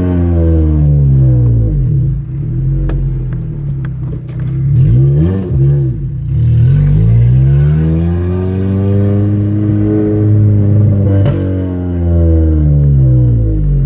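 2006 Toyota Corolla XRS's 1.8-litre 2ZZ-GE four-cylinder engine revving up and easing off several times while driving, its pitch rising and falling in long sweeps, heard loud through the open windows.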